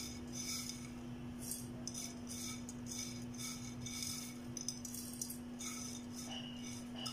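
Fried onions being scraped from a bowl into a stainless steel mixer-grinder jar: light clinks and scrapes about twice a second, over a steady low hum.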